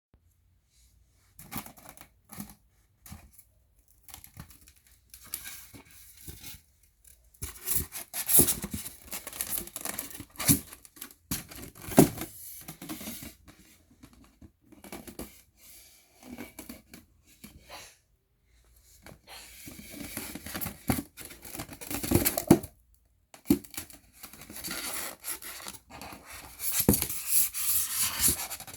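A round cake box and its plastic lid handled close to the microphone: irregular taps, scrapes and crinkles of plastic in bursts, with short pauses between.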